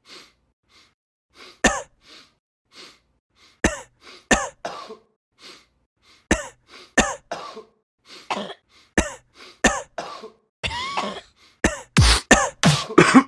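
A person coughing over and over: soft breathy huffs at first, then sharper coughs every second or so, building into a fast run of loud coughs near the end.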